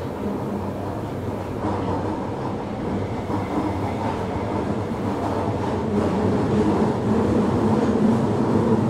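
Kita-Osaka Kyuko 9000 series electric train running, heard from inside the car: a steady rumble of wheels and running gear that grows gradually louder.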